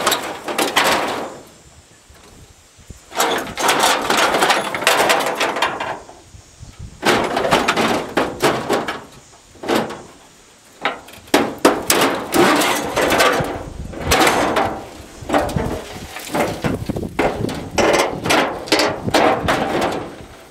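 Crumpled sheet-metal hood of a demolition-derby Chevy truck being wrestled open: loose, rattling clanks and scraping of bent metal in four bursts with short pauses between, the longest and busiest in the second half.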